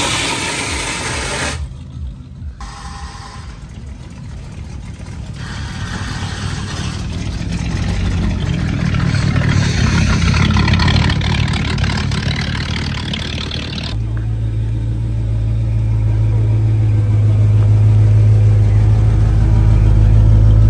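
Car engines running, heard in several short cuts, with the sound swelling louder toward the middle. From about two-thirds of the way in, an engine idles with a loud, steady low rumble.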